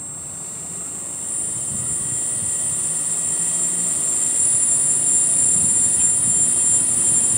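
DJI S1000+ octocopter's eight electric motors and propellers spinning up on the ground: a steady high whine over a whirring rush that grows louder through the first half and then holds steady.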